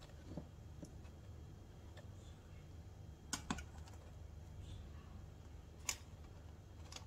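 Faint handling noises from a plastic piping bag filled with whipped egg whites: a few brief sharp clicks and crinkles, two close together about three and a half seconds in and one near six seconds, over a low steady hum.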